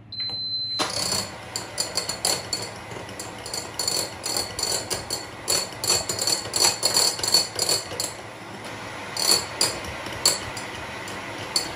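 Electric hand mixer running on low speed, its wire whisk beaters clattering and ticking rapidly against the sides of a glass bowl as they beat a liquid cake batter.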